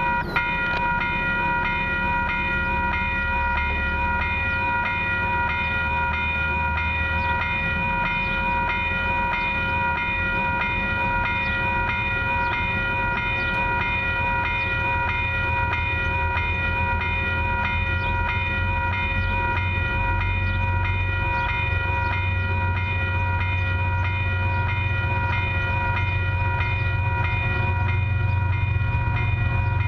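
Railway level-crossing warning bell, which starts just at the beginning and rings continuously as the crossing activates for an approaching train. A low rumble from the approaching train grows louder near the end.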